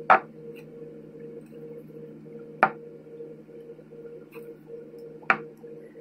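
Three sharp clicks, evenly spaced about two and a half seconds apart, over the steady hum of a bathroom extractor fan.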